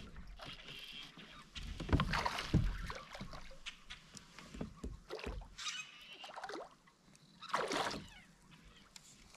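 Hooked bass thrashing at the surface beside a kayak while being reeled in: two short splashes in the second half, after a couple of knocks on the kayak about two seconds in.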